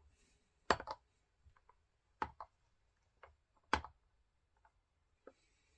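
About half a dozen sharp clicks and light knocks, spaced irregularly, from hands working on a small top-handle chainsaw.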